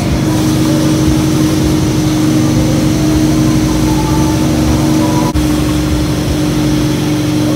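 Engine running steadily at a constant pitch over a rushing noise, with a brief break just past five seconds in.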